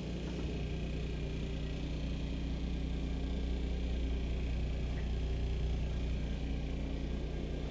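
Steady low rumble and hum of the yacht's onboard machinery, heard from inside the cabin below deck.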